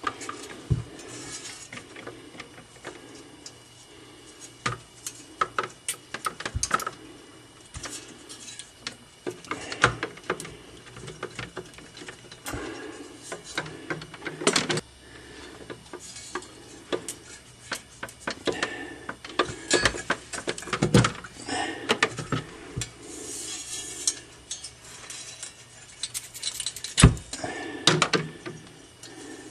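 Irregular metallic clinks, knocks and scraping as a refrigerator's defrost heater is worked loose and pulled out by hand.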